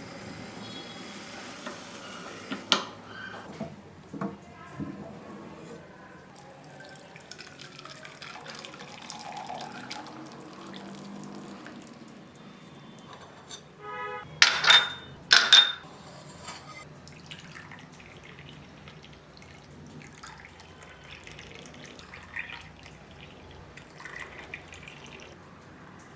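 Kitchen work sounds: liquid running and splashing with scattered clinks of utensils, and two loud sharp clanks about halfway through.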